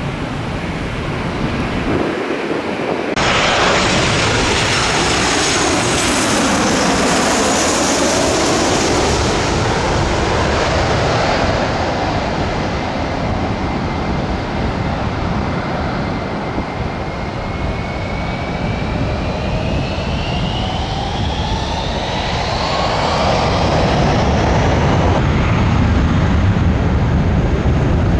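Jet airliner engines running loud as the plane passes, with whining tones that slide down and then rise in pitch. The sound changes abruptly about three seconds in, like a cut between clips.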